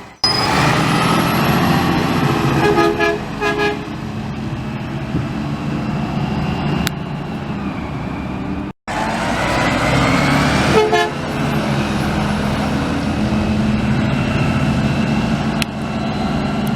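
A garbage truck's engine running while its brakes squeal, with high tones that slide upward. There are two takes, split by a sudden cut about halfway through, and short pitched chirps of squeal in each.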